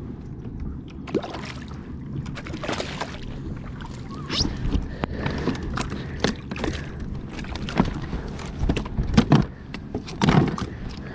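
Water splashing and sloshing, with scattered sharp knocks, as a hooked snook is fought and brought in at the side of a kayak. The splashes and knocks come irregularly over a steady low rumble and grow loudest near the end.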